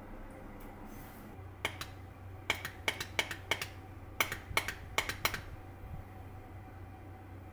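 Irregular run of short, sharp keyboard key clicks, about a dozen in a few quick clusters, over a quiet low hum.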